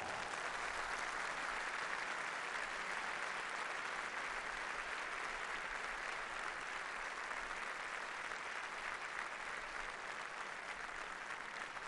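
Large concert-hall audience applauding steadily, easing off slightly toward the end.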